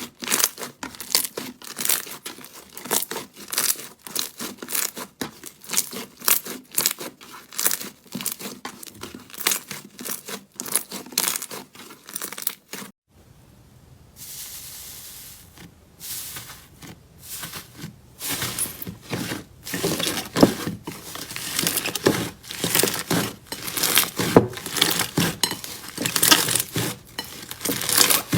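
Slime being squeezed and pressed by hand, giving a dense run of sticky crackles and pops, with a short break about halfway through.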